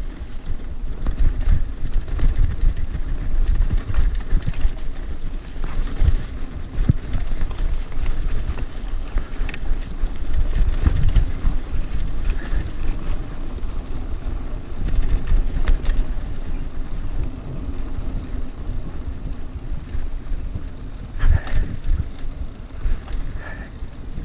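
Mountain bike riding fast down a dirt trail: wind buffeting the microphone, a heavy rumble from the tyres on the ground, and frequent short knocks and rattles as the bike goes over bumps.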